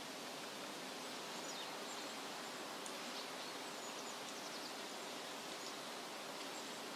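Faint, steady outdoor bush ambience: an even background hiss with a few faint, short high chirps in the first half.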